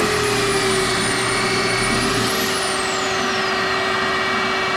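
A shop vac runs steadily under the high whine of a Kreg pocket-hole machine's drill motor. About two and a half seconds in, the drill whine falls in pitch as the motor spins down.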